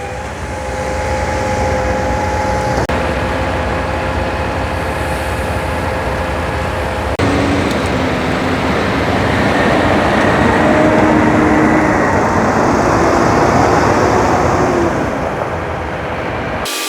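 Heavy diesel equipment running steadily, with a constant engine drone and a few held tones. The sound changes abruptly about three and seven seconds in.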